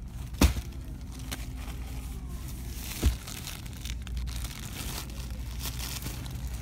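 Plastic-wrapped toilet paper packs rustling and crinkling as they are handled against a wire store shelf, with two sharp knocks, one about half a second in and another about three seconds in.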